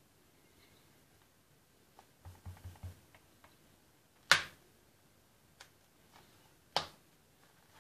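Handling noise of a small mold and resin cast worked on a plastic cutting board: a cluster of soft taps about two seconds in, then two sharp clicks, the louder a little past four seconds and another near the end.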